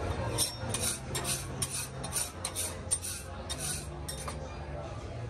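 Metal spatula scraping across a flat-top griddle in about ten quick, short strokes, roughly two or three a second, stopping about four seconds in.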